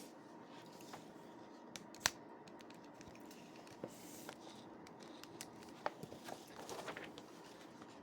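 Faint handling noises: scattered light clicks, a sharper one about two seconds in, and a short rustle near seven seconds, over a low steady hum.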